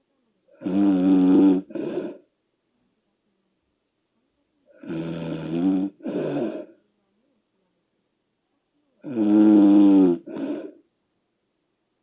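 A sleeping person snoring very loudly: three snores about four seconds apart, each a long pitched snore followed at once by a shorter one.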